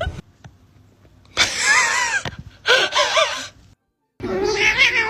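Cat yowling in wavering, drawn-out calls: two about a second long, then a longer one starting after a brief silent break near the end.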